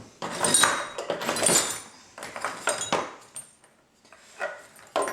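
Old metal hinges and loose hardware clinking and scraping as they are handled and picked through, in a few irregular bursts of rattling, with short knocks near the end.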